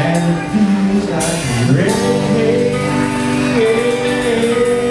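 Live blues band playing: electric guitars, bass and drums, with a lead line of long held notes and a deep swooping bend down and back up about one and a half seconds in.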